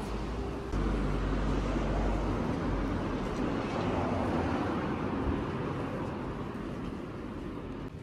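A passing vehicle's rumble, loud at first and gradually fading away toward the end.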